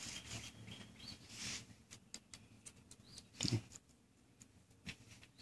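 Faint scattered clicks and light rustling as wire ends are handled and twisted back onto a humbucker pickup's lead, with one short soft thump about three and a half seconds in.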